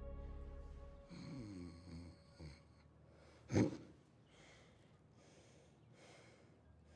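Music fades out, then a person snoring in sleep: a drawn-out groaning snore, one sharp loud snort about three and a half seconds in, and soft breaths after it.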